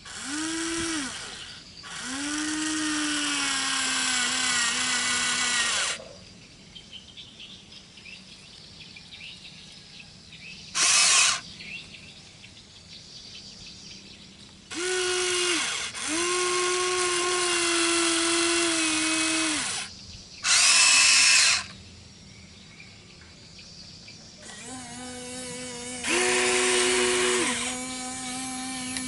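Electric motors of a Huina radio-controlled toy excavator whining in repeated bursts of one to four seconds as the boom, arm and cab move. The pitch dips and settles as each motion starts. Two short bursts in between are higher and louder.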